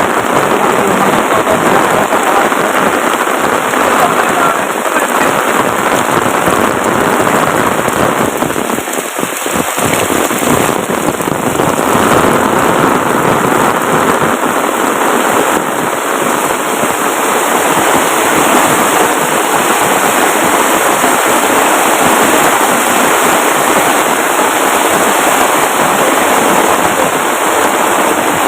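Heavy rain falling hard and steady, a loud dense hiss of downpour.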